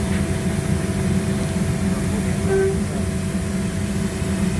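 Steady low machinery rumble with a faint constant hum over it, the running background of shipboard machinery.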